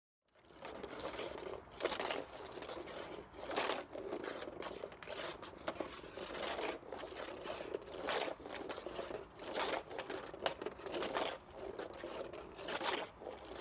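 Floorball stick blade and plastic ball scraping across plastic floor tiles as the ball is dragged back and forth in a dribbling drill, a steady rasping with louder swells about every one and a half seconds.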